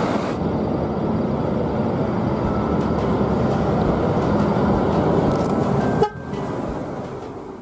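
Intercity coach buses on the road: engine and road noise with a horn tooting. The sound drops off sharply about six seconds in and then fades out.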